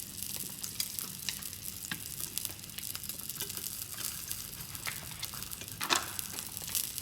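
Egg frying in olive oil in a pan: a steady sizzle with frequent spitting crackles and one louder pop about six seconds in. The cook has just said the egg is burning.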